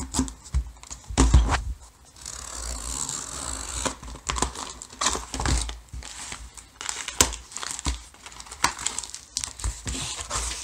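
Cardboard mailer box being handled and opened: a low thump about a second in, then a couple of seconds of steady tearing like packing tape coming off, followed by crinkling and rustling of cardboard and packing material with small clicks.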